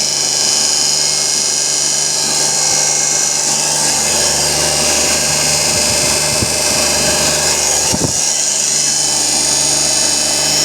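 Becker 7.5 hp compressor running steadily, a constant hum under a strong high hiss. A few low knocks come about six to eight seconds in, then one sharp click.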